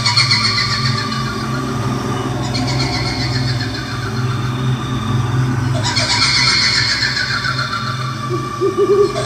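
Horror sound effect of a kuntilanak ghost: a shrill, quavering female cry, the kuntilanak's cackle, starting three times over a low steady drone. Owl hoots come in near the end.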